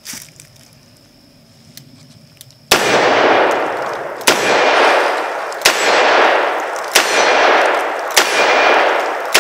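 Smith & Wesson Model 686 .357 Magnum revolver firing heavy 180-grain hard-cast loads: six shots about a second and a half apart, each followed by a long echoing decay. They begin a little under three seconds in, after a few faint clicks, and the sixth comes near the end.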